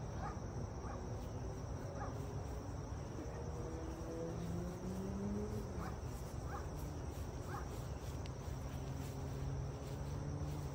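Insects chirping in a steady high chorus over a low outdoor rumble, with a few faint short knocks.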